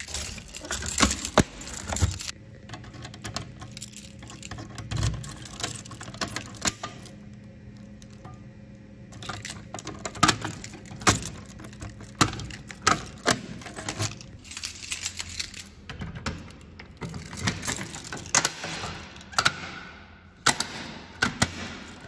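Keys jangling and a key working the lock of a Notifier manual fire alarm pull station, with repeated sharp plastic clicks and knocks as the station's housing is handled.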